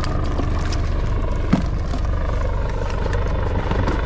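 Fishing boat's engine running steadily, with a single knock about one and a half seconds in.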